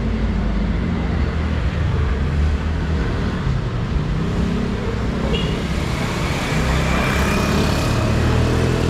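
Street traffic: cars and other road vehicles running past with a steady low engine rumble. A faint high-pitched whine joins about five seconds in.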